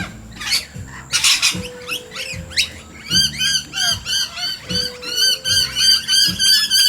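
Birds squawking: a few harsh screeches, then from about three seconds in a dense chorus of rapid, repeated chirps.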